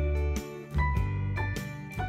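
Background music: short pitched notes over a deep bass note that changes about once a second.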